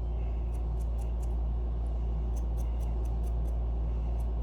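Scotch-Brite pad scrubbing small metal acorn nuts in short, quick scratchy strokes, over a steady low hum.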